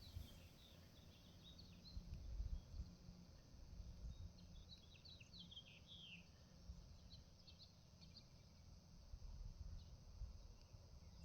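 Faint birds chirping, with short high calls scattered throughout, over a low rumble that swells briefly about two seconds in.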